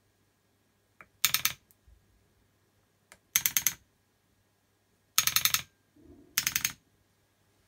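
Air-ride solenoid valves on a bench-wired management kit, switched by the remote's buttons with no air connected, chattering in four short bursts of rapid rattling. A faint click comes before some of the bursts.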